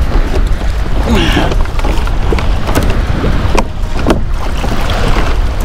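Strong wind buffeting the microphone, with choppy water slapping and splashing against a pedal kayak's hull in a squall.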